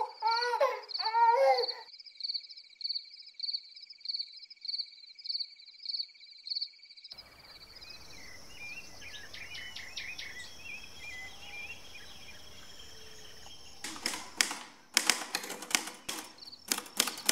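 A pulsing high insect trill, about two pulses a second, gives way to faint outdoor hiss with birds chirping. From about fourteen seconds in, the keys of an Erika manual typewriter clack in quick bursts, the loudest sound here.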